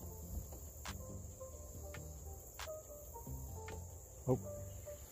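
Insects trilling steadily at a high pitch, with a few faint clicks and one short, louder sound near the end.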